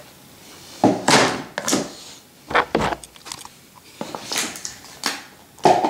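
Cardboard box being slid open and handled: a handful of short scraping and rustling bursts of cardboard, the first and longest about a second in.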